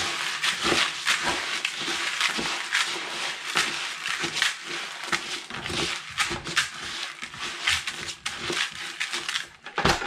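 A hand stirring a plastic bucket of fishing pellets and cooked hempseed. The grains rustle and click continuously against each other and the bucket.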